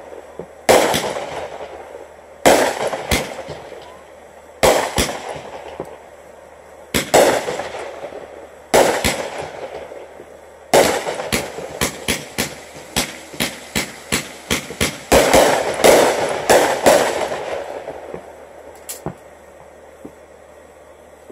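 Consumer fireworks going off: a series of sharp bangs, each trailing off for a second or two. The bangs come singly every couple of seconds at first, then in a fast volley in the middle, and die away near the end with one last crack.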